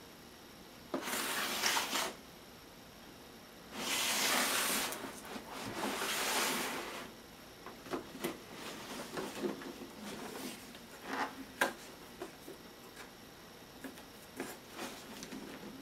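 Large cardboard box being handled and turned: rustling, rubbing scrapes about a second in and again from about four to seven seconds, then scattered light knocks and taps.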